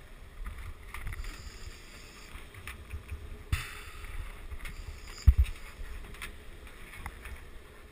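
A diver in fins shifting on an aluminium boat deck: a low rumble, with scattered knocks and rustles of gear and one sharp thump a little after five seconds in.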